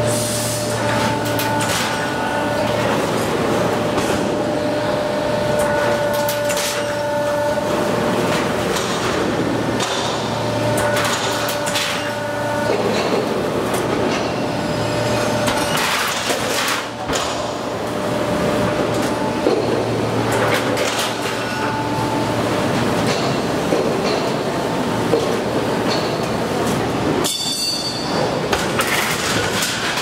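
Automatic rectangular HVAC duct production line running: a steady mechanical din with a whine that starts and stops as the sheet metal is fed through, and occasional sharp metal clanks from the notching and cutting units.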